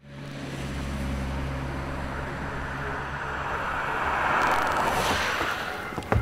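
A car driving past on a wet road over a steady traffic hum. Its tyre hiss swells to a peak about four and a half seconds in and then fades, with a brief sharp click near the end.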